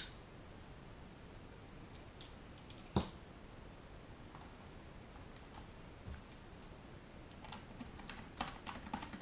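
Light clicks and taps of small screws and a hex driver being worked into a gimbal mounting bracket on a drone's plastic body: a single sharper knock about three seconds in, then a quick run of small clicks near the end as the screws are lined up.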